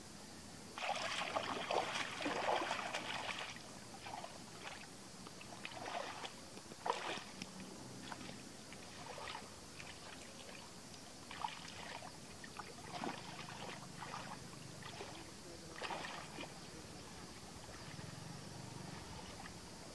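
Shallow muddy water splashing and sloshing as a person wades through it, loudest for a couple of seconds near the start, then scattered smaller splashes as hands grope about in the water.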